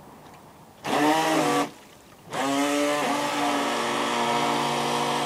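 Motor of a radio-controlled toy boat running in a whine: a short burst about a second in, then it starts again near halfway, rises briefly in pitch and holds steady.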